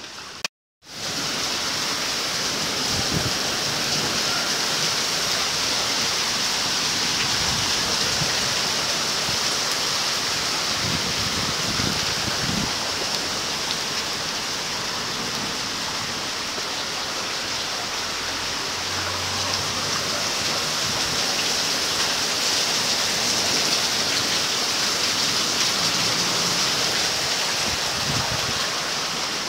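Heavy rain falling hard and steadily, an unbroken rushing hiss, after a brief dropout just under a second in.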